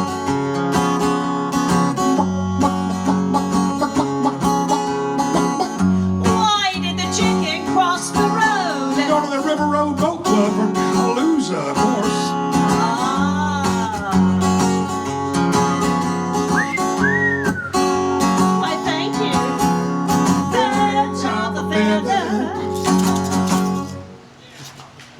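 Live acoustic band music, strummed guitar with gliding whistle-like calls over it, stopping about a second before the end.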